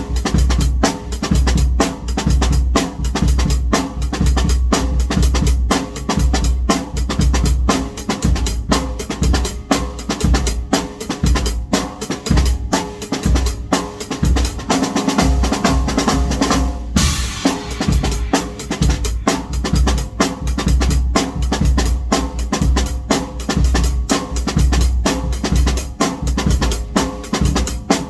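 Pearl drum kit played in a steady groove of bass drum, snare and cymbals, with music underneath carrying a deep bass. About fifteen seconds in the beat breaks into a fill that ends on a crash cymbal, then the groove picks up again.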